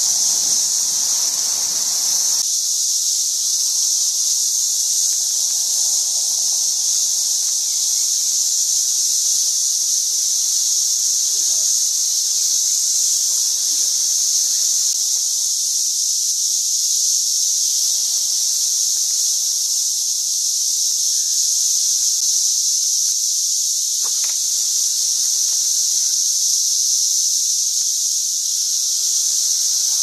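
Dense chorus of 13-year periodical cicadas (Brood XIX) singing in the trees: a loud, unbroken, high-pitched drone that holds steady throughout.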